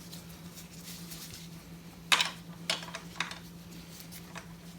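Metal engine parts and tools being handled on a motorcycle engine, giving a few short clicks and taps, the loudest about two seconds in, over a steady low hum.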